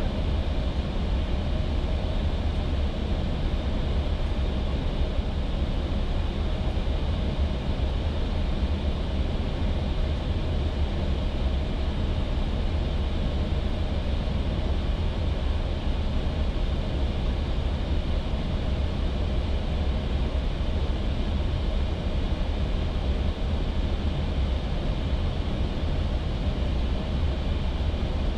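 Steady noise inside an Airbus A320 flight deck on approach: a constant rush of air and engine noise, heaviest in the low rumble, with a few faint steady tones and no change in level.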